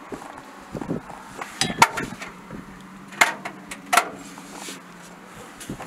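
A few sharp metallic knocks and clinks, each ringing briefly, from hands working on a Mi-28N helicopter's underwing rocket pods and stores, over a faint steady hum.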